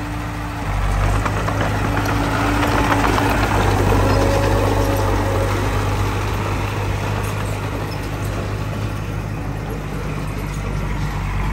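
Heavy diesel earthmoving-machine engine running steadily. It grows louder about a second in and eases off gradually after the middle.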